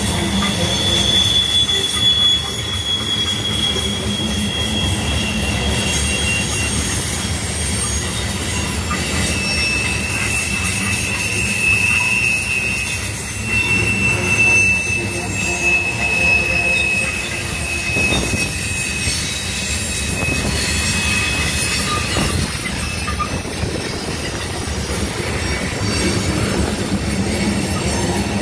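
Loaded covered hopper cars rolling past on a curve, with a steady rumble and clatter of wheels on rail. Flanges squeal high and thin against the curved rail, briefly near the start and again in a longer, slowly falling squeal through the middle.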